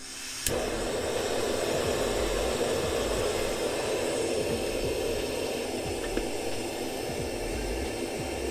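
Remote-canister gas camping stove's burner: a click about half a second in, then a steady hiss as it burns at full flow under a heat-exchanger (flux ring) pot.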